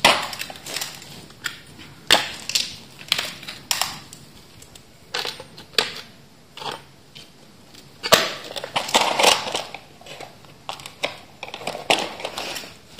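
Irregular clatter, knocks and scraping of hand tools and wooden pieces being handled on a stone-paved floor.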